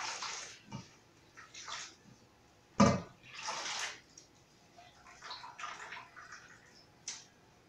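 Grated coconut squeezed by hand in a pan of water to extract coconut milk: repeated wet squelches as the milk splashes and drips back into the pan, every second or two. A sharp knock just under three seconds in is the loudest sound.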